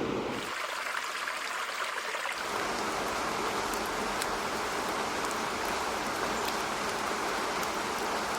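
Apple's Background Sounds playing a steady water ambience of rain and running stream. It switches to a different preset about half a second in and fills out again about two and a half seconds in, then cuts off abruptly at the end.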